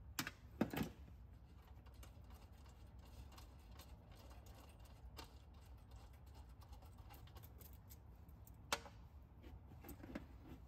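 Faint small clicks and rattles of hands handling ring-terminal wires and unscrewing the terminal bolts of a golf cart's lithium battery. There are a couple of clicks at the start and one sharper click near the end.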